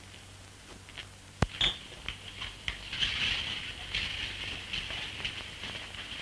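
A single sharp knock about a second and a half in, then light scattered clicks and ticks over steady hiss.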